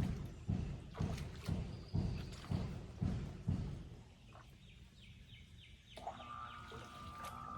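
A run of heavy thumps, about two a second, that stops after about four seconds; about six seconds in a steady hum with a clear tone starts.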